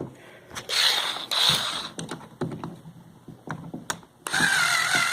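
Cordless electric screwdriver backing out an outlet's terminal screw: a short burst of the motor about a second in, a few small clicks of handling, then a steady motor whine near the end.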